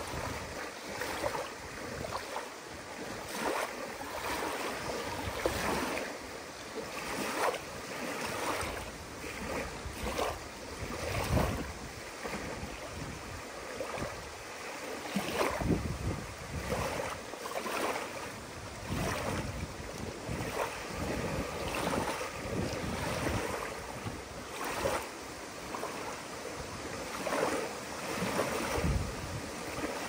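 Small wind-driven lake waves lapping and splashing on a sandy shore, a wash every second or two, with gusts of wind buffeting the microphone now and then.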